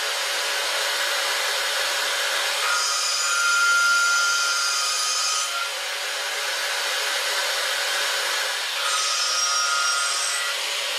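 End mill trochoidally milling a titanium blisk on a CNC machine cooled with liquid nitrogen and MQL through the spindle. A steady hissing cutting noise runs throughout. A high whine joins it twice, for about three seconds from roughly three seconds in, and for about two seconds near the end.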